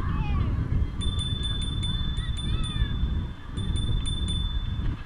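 Wind buffeting and road rumble on a GoPro microphone mounted on a moving bicycle. Over it runs a thin steady high whine with quick groups of sharp ticks, and a few faint gliding calls.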